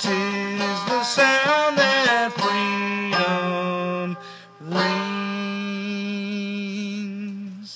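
A man sings the drawn-out closing notes of a folk song over a clawhammer banjo. The banjo plucks through the first few seconds, and after a short break one long note is held until the music stops just before the end.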